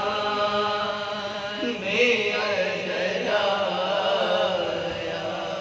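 Women's voices chanting a marsiya, an Urdu mourning elegy, without instruments: a lead voice at the microphone with others reciting along, in long, held lines.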